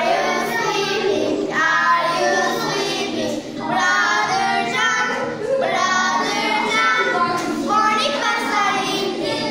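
Three young girls singing a song together in unison, in phrases with short breaks for breath.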